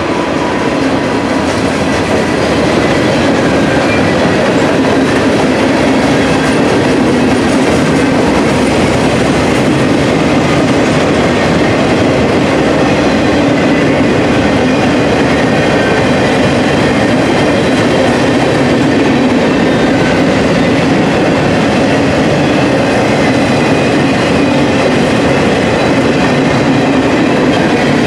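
Norfolk Southern freight train's cars rolling past at close range: boxcars, a covered hopper and a lumber-loaded centerbeam flatcar. Their steel wheels run on the rails with a loud, steady rolling noise.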